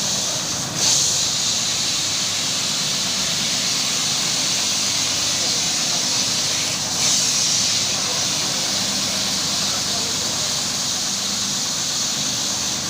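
Carpet-washing machine running steadily: a constant motor hum under a loud hiss of water. The hiss swells briefly about a second in and again about halfway through.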